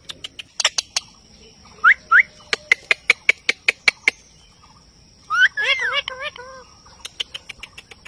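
Indian ringneck parakeets: runs of sharp clicks, about four a second at their fastest, two short rising chirps about two seconds in, and a wavering, warbling call about five and a half seconds in.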